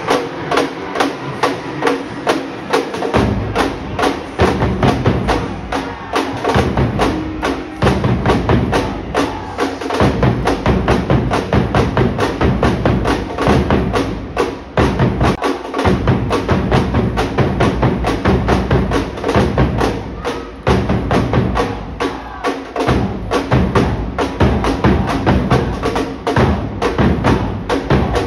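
Cheer-squad drumline playing a fast, driving beat of sharp, rapid drum strikes. Large marching bass drums thump underneath; they come in about three seconds in and drop out briefly a few times.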